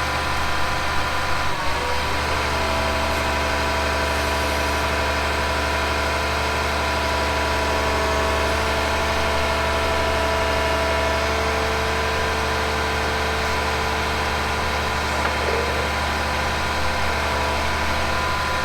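Excavator engine running steadily at idle, a constant low hum with a few steady whining tones over it.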